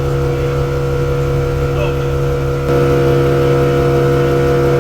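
Motorboat engine running steadily, getting louder about two and a half seconds in.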